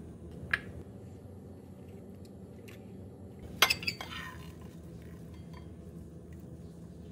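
Metal kitchen tongs clinking against ceramic bowls and plates while food is served: one sharp clink about half a second in, then a louder cluster of ringing clinks a little past halfway.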